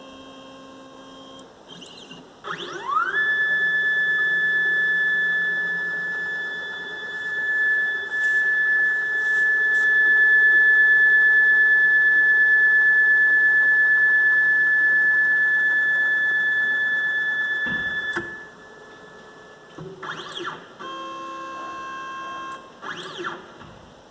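Homemade metal-framed CNC machine's motors running. A quick rising whine settles into a steady, high whine that holds for about fifteen seconds and cuts off abruptly. Shorter whines with several tones come near the start and again near the end.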